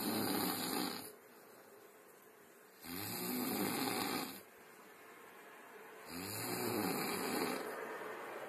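Snoring in a regular rhythm, one snore about every three seconds: the end of one in the first second, a full snore about three seconds in, and another starting about six seconds in, with quiet gaps between.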